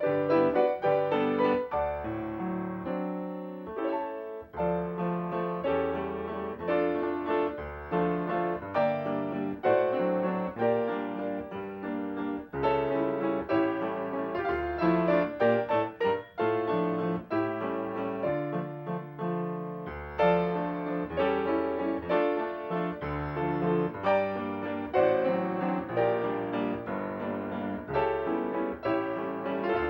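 Piano music playing: a continuous stream of struck notes over chords in the bass.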